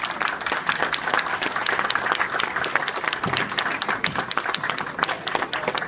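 Spectators applauding, many hands clapping at once.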